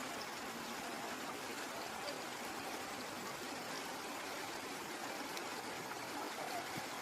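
A stream's water flowing steadily, an even rush of noise without a break.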